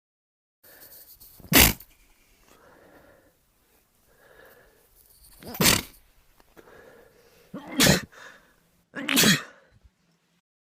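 A man sneezing four times, sharp short sneezes he tries and fails to stifle, with quieter breathy sounds between them. The last two come about a second and a half apart.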